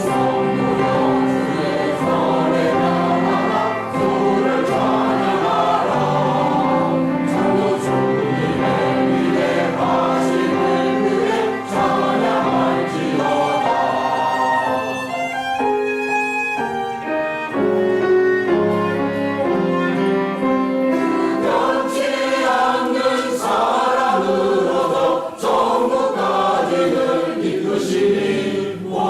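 Church choir singing an anthem in several parts, with sustained held chords.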